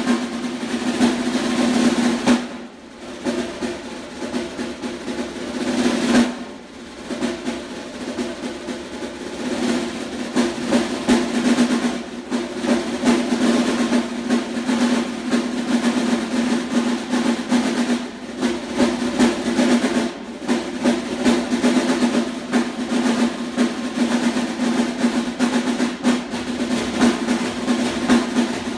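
Snare drum played solo with sticks: fast strokes and rolls over a ringing snare rattle. The playing drops briefly soft about three seconds in and again around six to seven seconds, then builds back to full dense rolls.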